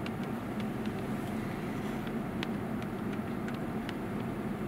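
A vehicle's engine running steadily with a low hum, with scattered light clicks over it.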